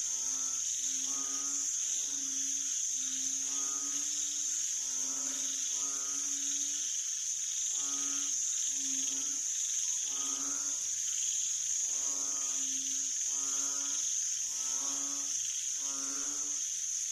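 Banded bullfrogs calling: a long series of short, deep, pitched calls, roughly one a second with a couple of brief pauses, over a steady high chorus of crickets and other insects.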